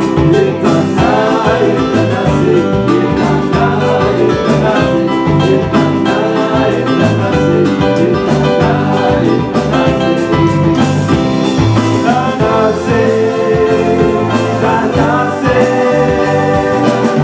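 Band music with a steady beat and melodic instruments playing, in an instrumental passage of a Moluccan song.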